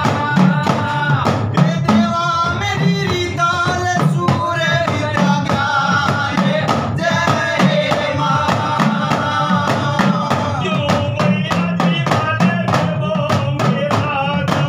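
Devotional folk singing to a deru, a small double-headed drum beaten with a stick in a fast, steady rhythm.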